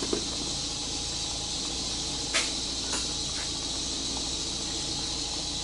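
Steady high-pitched hiss in the background, broken by two or three light metallic clicks about two and a half seconds in: a hand wrench on a suspension bolt.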